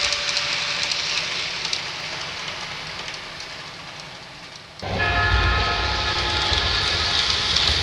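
Dubbed recording of a real train: running noise that fades away over several seconds, then about five seconds in a sudden louder passage of low rail rumble with a horn sounding for about two seconds.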